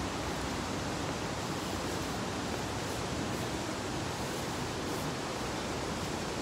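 Steady, even rush of flowing water from a stream or river below a footbridge.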